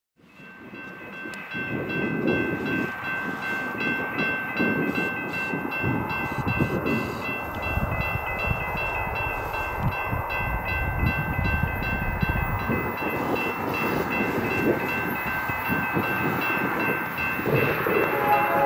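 Approaching freight train led by a BNSF SD70MAC diesel-electric locomotive, heard from far off. An uneven low rumble carries a steady high-pitched ringing of several tones, fading in over the first two seconds.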